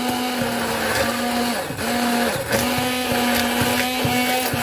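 Hand-held immersion blender running in a tall plastic beaker, puréeing cherry-tomato pulp with oil and cooking water into an emulsion. Its steady motor note sags briefly twice near the middle.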